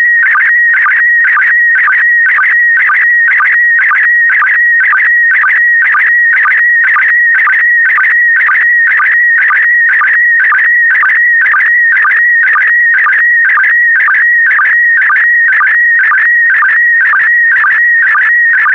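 Slow-scan television (SSTV) signal in PD120 mode: a loud, high, continuously warbling tone whose pitch shifts rapidly to carry the picture's brightness and colour line by line. A regular pulse about twice a second marks each new pair of image lines.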